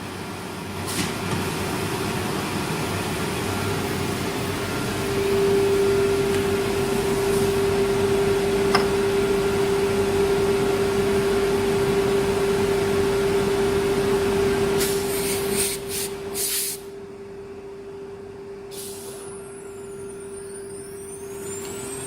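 CNC router spindle running with a steady whine while the bit cuts wood. The cutting noise gets louder about five seconds in and stops about sixteen seconds in, leaving the spindle whine alone.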